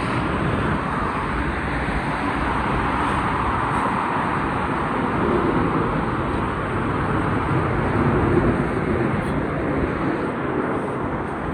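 Road traffic passing close by: a steady wash of car and bus noise that swells and eases as vehicles go past.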